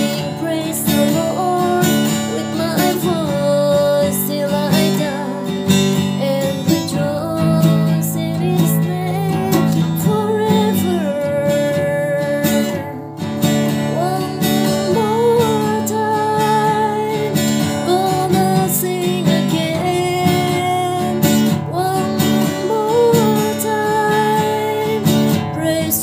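A woman singing a gospel song while strumming chords on an acoustic guitar.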